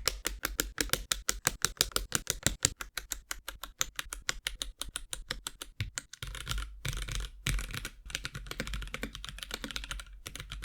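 Mechanical keyboard with KTT Monochrome Onyx tactile switches (polycarbonate housings, gold-plated long springs) being typed on. For about six seconds there are separate keystrokes at about four to five a second, then fast continuous typing with brief pauses.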